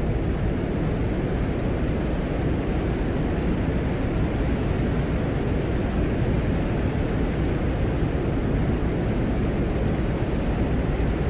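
Venera 13/14 lander microphone recording from the surface of Venus: a steady low rushing noise, heard as the soft blow of the Venusian wind with static in the background.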